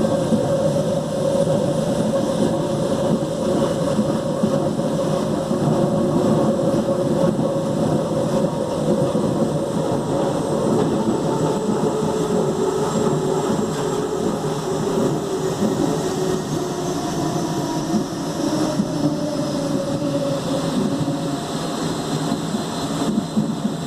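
CPTM Mafersa 1700-series electric multiple unit car running along the rails, droning very loudly under a steady rumble. Several whining tones slowly fall in pitch during the second half.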